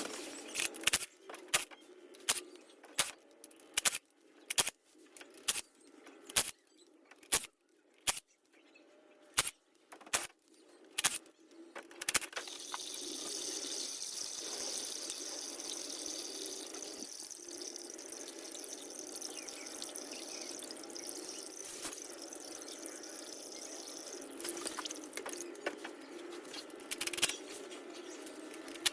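A run of sharp clicks, roughly one every half to one second, then a steady stream of fluid running out of the car, typical of old transmission fluid or oil being drained.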